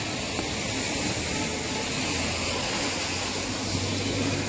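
Steady noise of rain and traffic on a wet road, with a low vehicle engine hum coming in about two seconds in.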